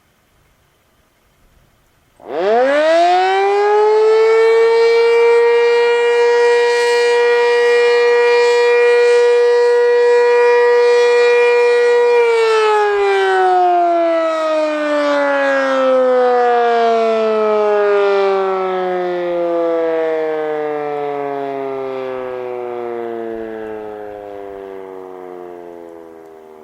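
Sentry 7V8-B outdoor warning siren sounding its daily noon test blast. About two seconds in it winds up quickly to a steady tone and holds it for about eight seconds, then winds down in a long falling glide that is still fading at the end.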